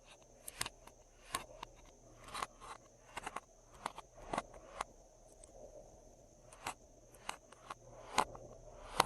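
Glossy slime being kneaded and pressed by hand, giving irregular wet clicks and pops about once or twice a second.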